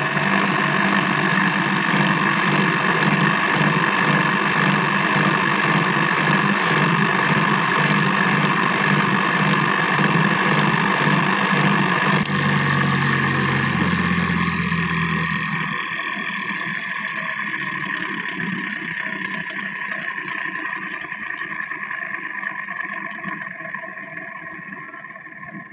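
Electric motor spinning a diamond grinding wheel for sharpening TCT blades, running steadily with a loud hum. A click comes about halfway through; the low hum then sinks in pitch and dies away, and the wheel whirs down more and more quietly as it coasts after being switched off.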